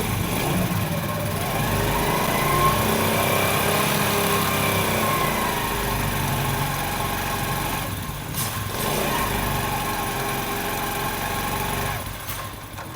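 Honda CD 70 motorcycle's small single-cylinder four-stroke engine running in gear with the rear wheel and chain turning, its revs rising and falling. There is no tak-tak knock from the chain, which the mechanic puts down to the chain lock (master link).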